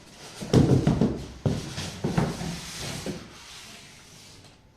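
Unboxing and handling noises of a monitor and its stand parts: four sharp knocks and clatters, the first about half a second in, over rustling, dying away near the end.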